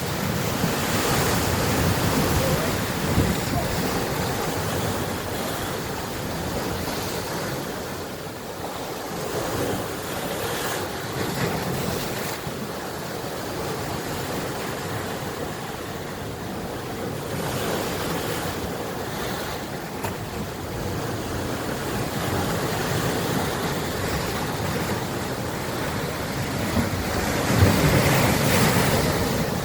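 Sea waves breaking and washing ashore in a continuous rushing wash that swells and eases, with one louder surge near the end.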